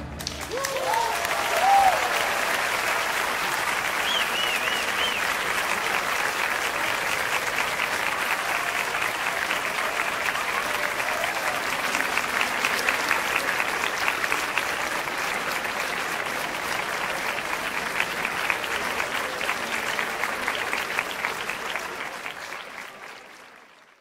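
A large outdoor crowd applauding and cheering after an orchestral performance, with a few shouts and whistles early on. The applause is steady and fades out over the last couple of seconds.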